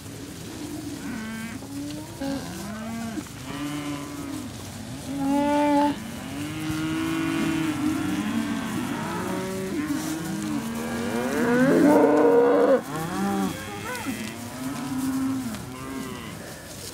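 A herd of Holstein-Friesian dairy cows mooing, many calls overlapping one another, from cows just turned out onto pasture. The loudest stretch of calling comes about twelve seconds in.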